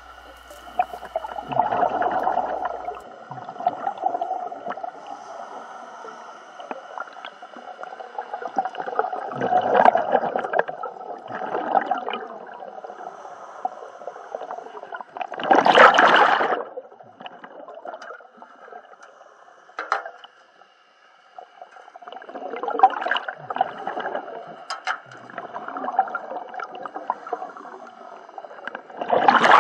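Scuba diver's breathing heard underwater: regulator exhalations bubbling out in swells every few seconds, the loudest a little past halfway and another at the very end.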